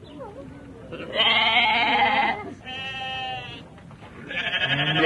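An animal calling: two long, quavering, bleat-like cries, the second quieter, and a third beginning near the end.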